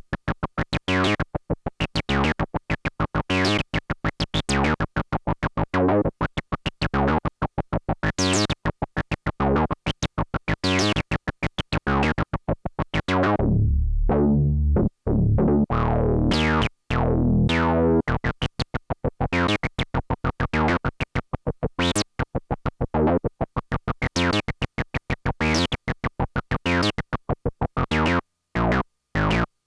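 Behringer Odyssey analog synthesizer playing a fast run of short, plucky notes, about four to five a second, each starting bright and quickly closing down. About halfway through the line slows into longer, deeper notes before the quick staccato pattern returns.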